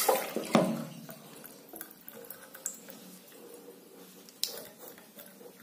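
Water from a bathroom sink tap cut off at the start, then water dripping and a few small splashes and clicks in a ceramic basin, with one sharper click about four seconds in.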